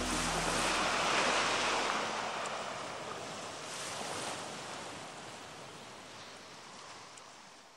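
A wash of noise like surf, loudest about a second in, then fading out slowly to silence at the end of the soundtrack.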